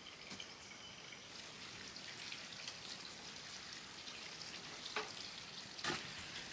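Small wood fire of split kindling, just lit between hearth stones, crackling and hissing faintly as it catches. A couple of short knocks come near the end.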